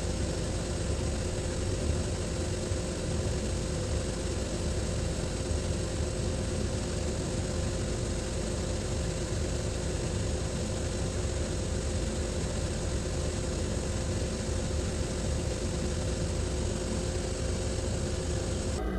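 A workshop machine's electric motor running steadily: a constant hum with a hiss over it. It cuts off abruptly near the end.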